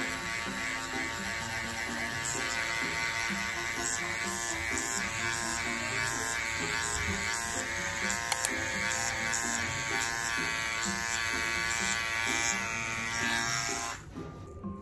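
Dermapen 4 microneedling pen buzzing steadily as its needle tip is worked over the cheek, then cutting off about a second before the end. A single sharp click about halfway through.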